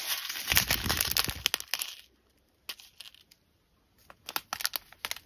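Thin plastic zip bags of small square resin drills crinkling as they are handled, with the drills clicking against each other inside. The crinkling stops about two seconds in, and after a couple of quiet seconds a few scattered crinkles and clicks follow.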